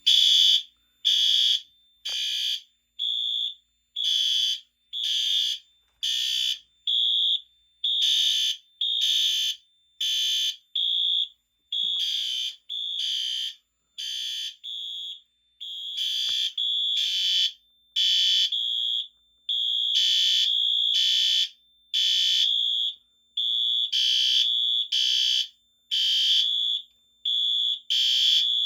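Fire alarm horn strobes, a Wheelock MT and a System Sensor P2WL, sounding the temporal code-3 pattern after a manual pull station has put the Fire-Lite MS-5012 panel into alarm. Two horns blast out of step, their pulses overlapping, with short gaps between.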